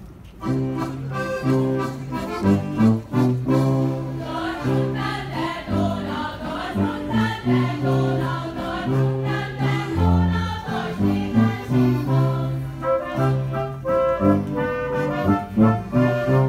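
Folk dance music with brass and accordion begins about half a second in, over a steady oom-pah bass line.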